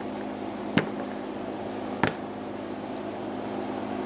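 Two short, sharp clicks about a second apart as the fuel hard lines are pressed into the molded clips on the fuel tank, over a steady low hum.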